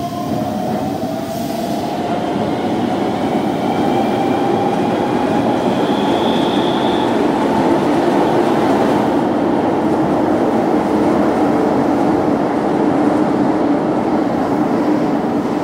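Keihan electric train accelerating through an underground station: its traction motors give a whine that rises in pitch over the first few seconds. A loud, steady rumble of wheels on rail follows, as another train runs close alongside.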